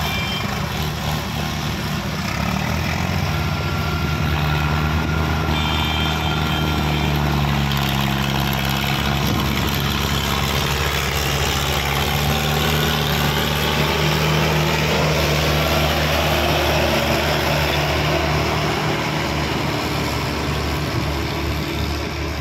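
Diesel engine of a Mahindra Arjun Ultra-1 555 DI tractor running as it pulls a loaded trolley of soil. The engine gets a little louder through the middle as the tractor passes close, then eases off slightly.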